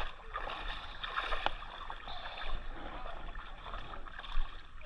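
Water splashing and sloshing around a paddled canoe or kayak on a river, with a light knock about a second and a half in.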